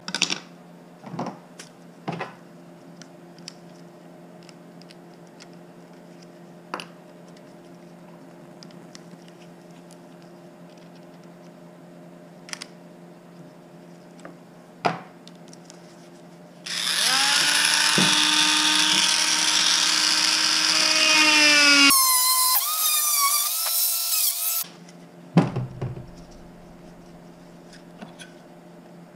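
Cordless Dremel rotary tool spinning up about seventeen seconds in and running for about eight seconds, its pitch wavering in the second half as it works. Before it come a few light knocks of wooden parts being handled on the bench, and a sharp knock follows it.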